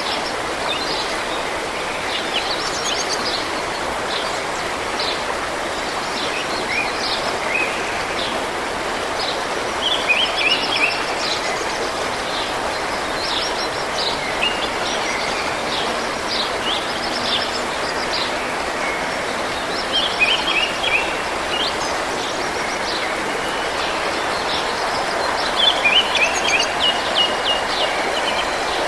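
A forest stream running with a steady rush of water, and small birds singing over it: short high chirps throughout, with quick runs of repeated notes about 10, 20 and 26 seconds in.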